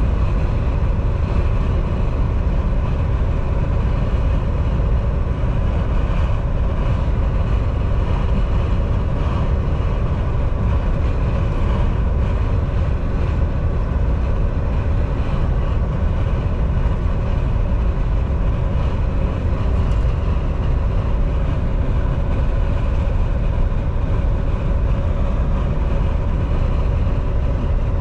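Steady cab noise inside a Volvo semi-truck at highway speed: the diesel engine's low drone mixed with tyre and road noise, even in level and pitch throughout.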